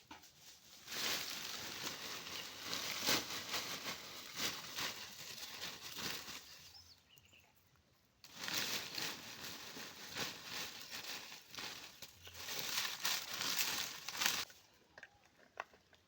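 Rustling and crinkling of something dry being handled, in two spells of several seconds each with a short pause between.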